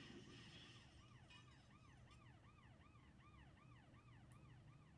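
Faint emergency-vehicle siren in a fast yelp, its pitch rising and falling about three to four times a second, with a short hiss in the first second.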